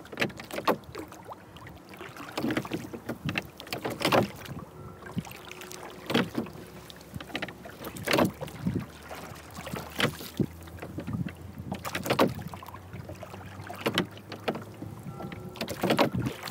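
A wooden rowboat being rowed with a pair of oars: a short sharp stroke sound about every two seconds as the oars catch and pull through the water in their oarlocks.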